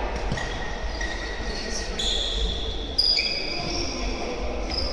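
Futsal play on a sports-hall court: shoes squeaking on the floor in short high-pitched squeals, several starting abruptly about two and three seconds in, with an occasional knock of the ball being kicked.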